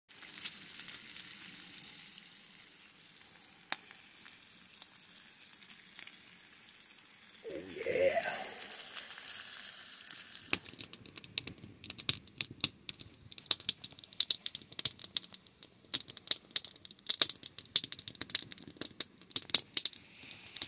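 Strips of bacon sizzling in a metal tray over a campfire, a dense steady hiss with a brief wavering pitched sound about eight seconds in. About halfway through the hiss stops and gives way to the sharp, irregular pops and crackles of a small wood fire burning.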